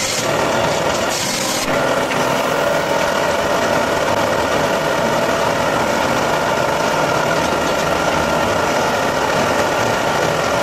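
Woodworking power tool cutting wood, the cutting hiss stopping about a second and a half in, then its motor running steadily with no load.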